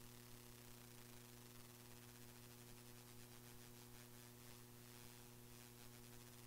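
Near silence: a faint, steady electrical hum and hiss on a dead audio feed, with no sound from the room coming through.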